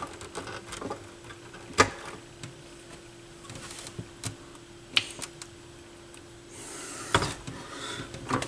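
Scattered small clicks and taps from hands working on turntable mechanism parts, over a faint steady hum. Near the end the hum stops and there is a short rustling hiss.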